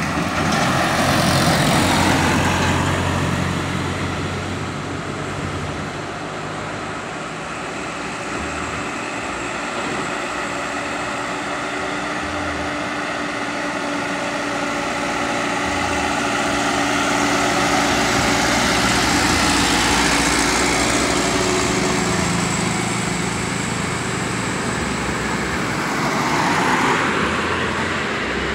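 Diesel engines of light trucks passing one after another on a steep hill road: a steady engine drone that swells as each truck comes close, with a later truck approaching near the end.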